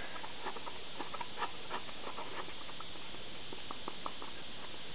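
Faint scattered clicks and taps of hands handling a cardboard tube and a plastic PVA glue bottle while gluing on a wool tail, over a steady background hiss.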